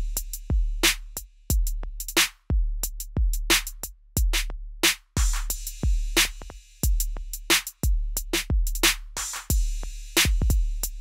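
Two copies of the same programmed drum loop playing at once, out of step: the original with its kick, and a shortened copy with the kick filtered out. Their hi-hats and snares drift against each other in a tape-loop-style phasing, giving uneven, shifting polyrhythms.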